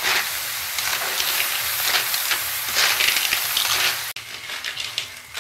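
Blood cockles, holy basil and chili sizzling in a hot wok while a metal ladle scrapes and turns them. The sizzling hiss drops away suddenly about four seconds in, leaving the scraping strokes.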